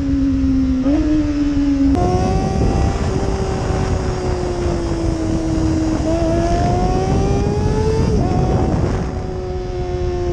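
Kawasaki ZX-25R's high-revving 250 cc inline-four running through an Austin Racing aftermarket exhaust while riding. The engine note jumps up sharply about two seconds in, sags slowly, climbs again for a couple of seconds, then drops back lower near the end, with wind rush underneath.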